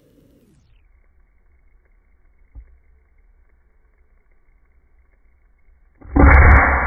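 A single shot from a .22 Benjamin Marauder pre-charged pneumatic air rifle about six seconds in: a sudden loud, dull report that fades over most of a second.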